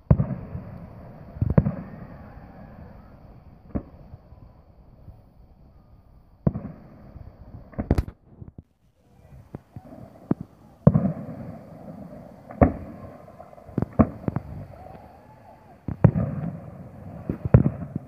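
A dozen or so sharp, irregular pops and thumps over a low rumbling noise, with a brief dropout about eight and a half seconds in.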